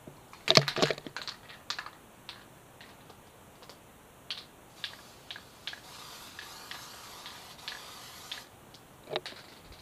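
Aerosol can of Loctite high-performance spray adhesive hissing in a steady spray for about two and a half seconds, starting about six seconds in and stopping abruptly. Around it are sharp clicks and rustles of the can and the paper template being handled, loudest about half a second in.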